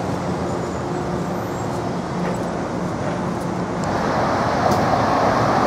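Street traffic noise with a steady low engine hum from a city bus waiting at a light. About four seconds in the traffic grows louder as vehicles drive past.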